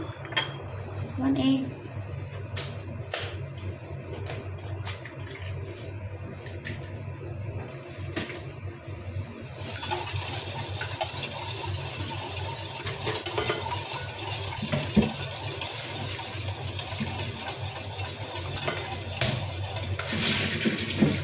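A wire whisk beating an egg in a stainless steel mixing bowl: a steady, fast metallic scraping and rattling that starts about ten seconds in and runs for about ten seconds. Before it there are scattered light clinks and taps against the bowl.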